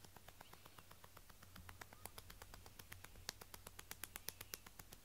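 A cat scratching at its neck with a hind paw, its collar ring and tag clinking in a fast run of faint clicks, about ten a second, louder in the second half.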